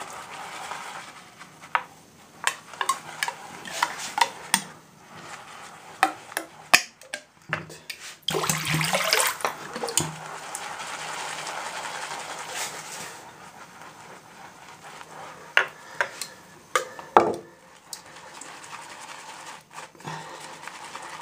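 Synthetic shaving brush whisked around a shaving bowl, building a lather from hard shaving soap: wet swishing and scraping with scattered sharp clicks.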